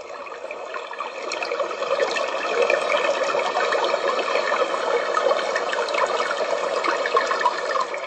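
Homedics sound machine playing a recorded running-water nature sound through its small speaker. It grows louder over the first couple of seconds as the volume knob is turned up, then holds steady.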